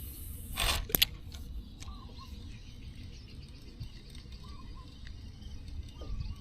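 Outdoor ambience with a low rumble, a sharp click about a second in, and faint short bird chirps a few times.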